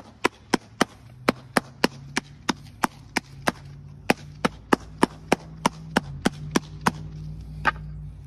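Steel hand float tapped rapidly on a flexible rubber texture stamp laid on fresh concrete, about three sharp taps a second, imprinting the texture into the slab. The tapping stops near the end.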